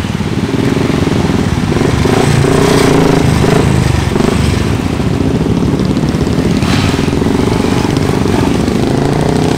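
Engines of a group of motorcycles riding past one after another at low speed, several bikes running at once in a steady mix.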